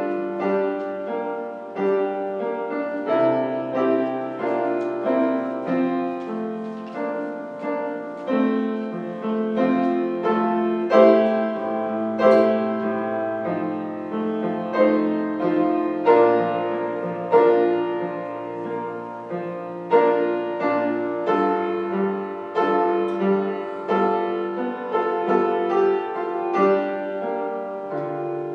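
Piano playing slow, sustained chords over held bass notes.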